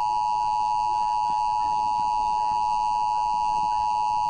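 Emergency alert broadcast attention tone: a single steady, unbroken high electronic tone, signalling the tornado emergency warning that follows.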